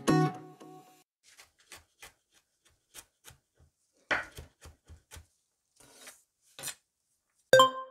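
Chef's knife chopping garlic on a wooden cutting board: a series of irregular sharp taps of the blade against the board. Music fades out at the start, and a short loud ringing chime sounds near the end.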